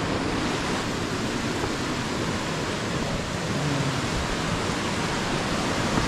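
Mountain stream running, a steady rush of water with no break or change.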